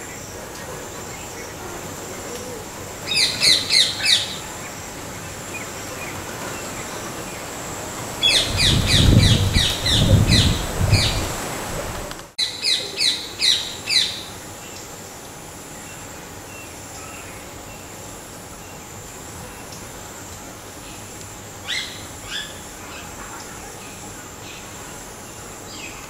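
A bird calling in three loud bursts of short, rapid, high notes, four to six notes a burst, with a few fainter notes later on. A low rumble runs under the middle burst.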